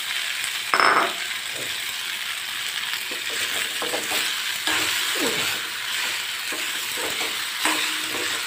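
Boiled macaroni sizzling in hot oil and masala in an iron kadhai while a metal spoon stirs it, scraping and clinking against the pan. A louder knock comes about a second in.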